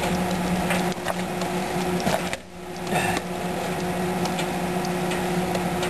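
Arc welding on a steel hull: the arc crackles and sputters over a steady electrical hum, briefly dropping out about two and a half seconds in before picking up again.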